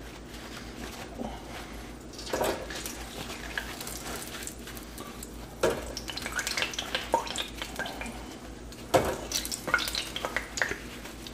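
Paper towels rustling and crinkling as they are pressed onto sous-vide chicken wings on a paper plate to blot them dry, with sharper crackles about two, six and nine seconds in.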